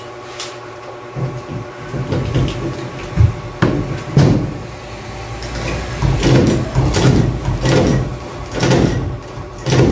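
Hand pop-rivet gun worked in repeated squeezes, with clicks and knocks, as rivets are set through the PVC ceiling trim; in the second half the strokes come in a string about every 0.7 seconds.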